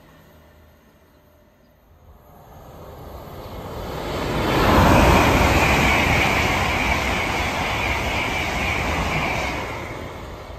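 LNER Azuma (Hitachi Class 800-series) high-speed train passing at speed. The rush of the train builds over a few seconds and holds loud with a steady high ringing tone while the coaches go by, then falls away near the end.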